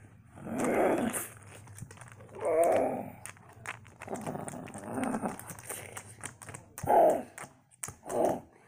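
A child's voice imitating big-cat growls and roars, about five rough bursts of a second or less, with light clicks of plastic toy animals being handled between them.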